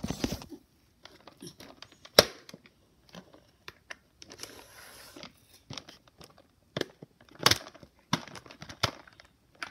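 Handling noise as plastic toys are moved and bumped over a foam play mat and carpet: scattered knocks and taps with light rustling, the loudest knock about two seconds in and another about seven and a half seconds in.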